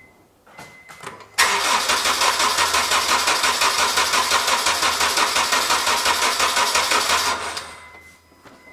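Car engine cranked over on its starter motor for a compression test, with a steady, even pulsing beat as each compression stroke pushes the gauge reading up. The loud cranking starts suddenly about a second and a half in and stops about a second before the end.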